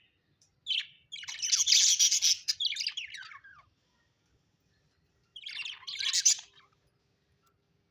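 Budgerigars chirping and chattering in bursts: a brief chirp, then a long run of busy high chatter, a pause of about two seconds, and a shorter burst near the end.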